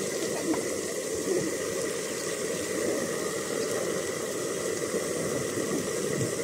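Broccoli, mushrooms and onion sizzling and steaming on a hot cast iron pan, a steady, dense sizzle.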